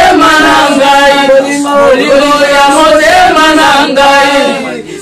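Women's voices singing a slow mourning lament together, with long held, wavering notes and a short pause near the end.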